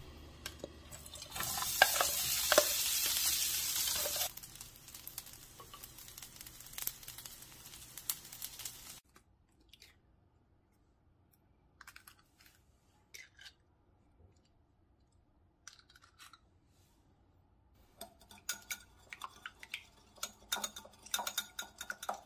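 Chopped gimbap and rice hit an oiled frying pan and sizzle, loudly for a few seconds and then more quietly, with a few utensil clicks against the pan; the sizzle stops suddenly. After a quiet stretch with a few light taps, eggs are beaten in a ceramic bowl, a fast run of clinks of the utensil against the bowl near the end.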